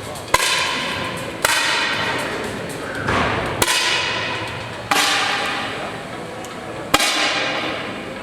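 Air rifle shots: five sharp cracks at uneven intervals, each ringing out in a long echo.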